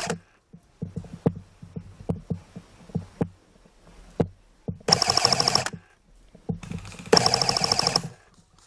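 Airsoft electric gun firing on full auto: short bursts of a fast, even rattle. The bursts come about five seconds in and again about seven seconds in, each lasting under a second, with scattered single knocks and clicks between them.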